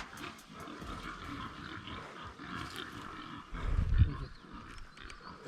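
Feral pig grunting, a rough uneven animal sound, with a louder low burst about four seconds in.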